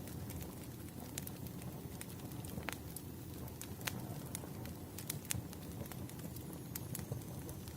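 Wood fire crackling: irregular sharp pops and snaps from burning firewood over a steady low rumble of flames.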